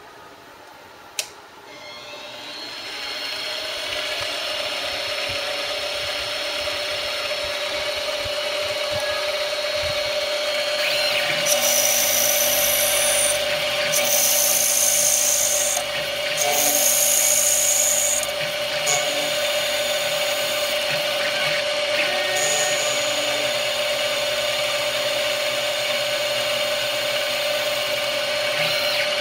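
CNC lathe spindle spinning up after a single click, then running steadily with a whine while the tool takes cutting passes on a plastic part. Each pass adds a harsh, high-pitched cutting noise lasting one to two seconds, several times in the second half.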